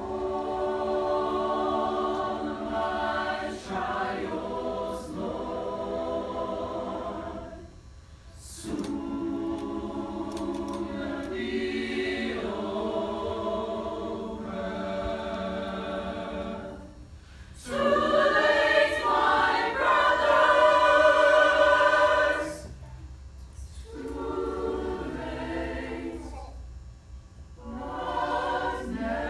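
Mixed choir singing in long held phrases with brief pauses between them, swelling to its loudest passage about two-thirds of the way through.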